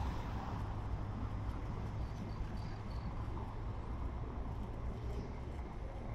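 Steady low rumble of road traffic in outdoor street ambience, with a few faint high chirps about two to three seconds in.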